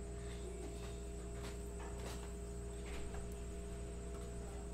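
Steady low hum with a few faint, light clicks or taps.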